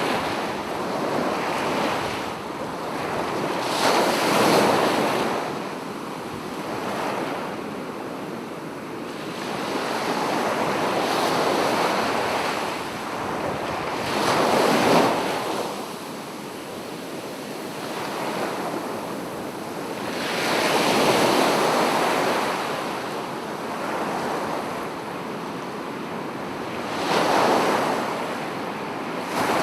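Ocean waves breaking and washing in, a continuous surf hiss that swells with a wave about every six seconds and falls back between them.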